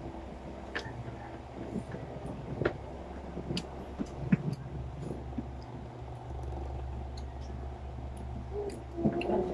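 A person eating grilled chicken intestines and rice by hand from a plastic container: scattered small clicks and taps of chewing and handling food, over a steady low hum.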